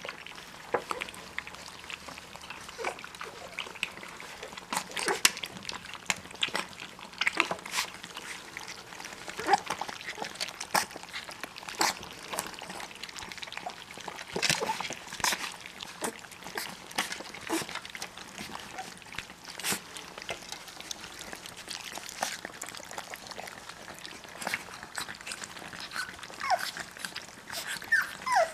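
German Shorthaired Pointer puppies, three weeks old, lapping and slurping puppy formula together from a metal pan: a busy, irregular run of wet licks and clicks. A brief falling squeak comes near the end.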